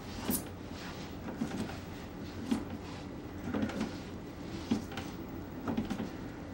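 Baby doorway jumper creaking and knocking in the door frame at irregular intervals as the baby spins and bounces in it.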